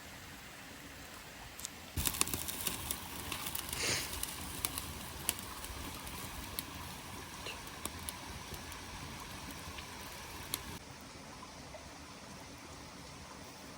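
Campfire crackling and popping in irregular sharp snaps, with a brief hiss about two seconds in. It starts and stops abruptly.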